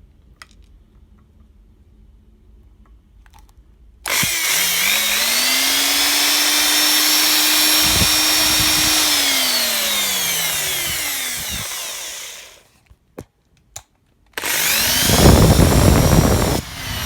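Interskol electric drill being test-run: about four seconds in the motor spins up to a steady whine, then slows and coasts to a stop. After a couple of clicks it runs again, louder, this time in reverse.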